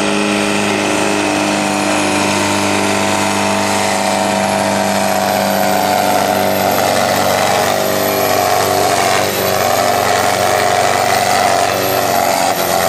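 Diesel engine of a Steyr pulling tractor running loud and steady at full load as it drags a weight-transfer sled.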